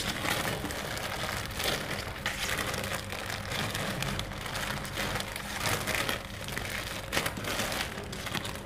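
Thin plastic sheet crinkling and rustling steadily as hands knead a soft cashew-paste dough wrapped in it.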